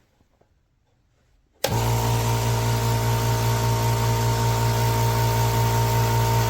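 Nessxa oil-free 'silent' air compressor switching on abruptly about a second and a half in, then running steadily with an even low hum over a rushing hiss.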